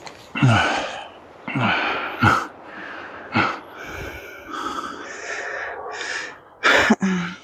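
A person breathing hard, with short falling grunts on several of the breaths and a louder gasp near the end.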